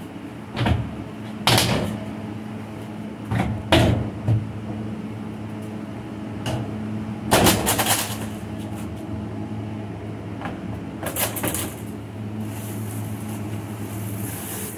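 Knocks and thumps of a large black plastic lid on a controlled-atmosphere storage tub being unfastened and pulled off, about ten sharp bumps spread over the first twelve seconds. A steady hum from the cold room's fan runs underneath, and near the end there is a rustle of mesh bags of chestnuts.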